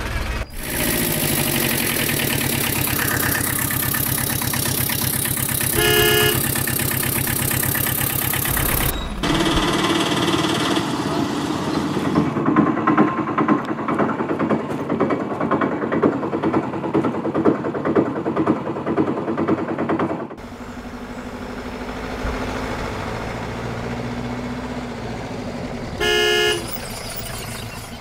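Motor-vehicle engine sounds in three stretches, changing abruptly about nine and twenty seconds in; the middle stretch is a fast, rattling small engine like a three-wheeler auto-rickshaw's. A horn toots briefly twice, about six seconds in and near the end.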